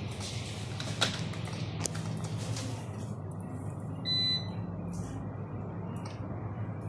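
Ultrasound scanner giving a single short electronic beep about four seconds in, as it switches to its 3D/4D volume probe, over a steady low hum. Two sharp clicks come a little earlier, about a second in.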